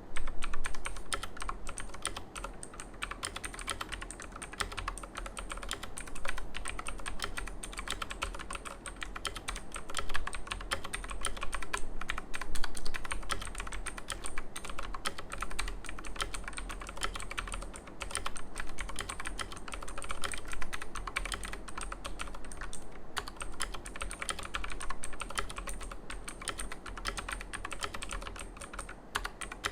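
Fast continuous typing on a mechanical keyboard with clicky Outemu Blue switches, a dense stream of sharp clicks with a few brief pauses. A steady low hum sits underneath.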